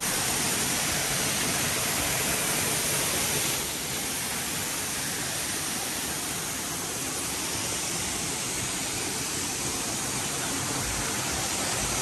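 Steady rushing noise of a thin waterfall pouring into its rock pool, a little quieter from about four seconds in.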